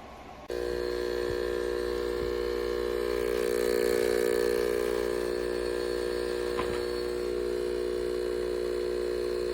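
A steady machine hum made of several even tones, starting abruptly about half a second in.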